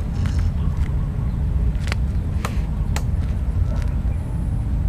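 Single-cylinder Z200S motorcycle engine running through an open Akrapovic Evo GP exhaust with the silencer removed, a steady low rumble with a few sharp clicks or pops around the middle.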